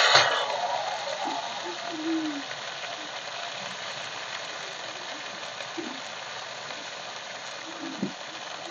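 Hot oil hissing in a kadhai over a chulha fire. It is loud at first and fades over about two seconds to a steady low hiss, with a soft knock near the end.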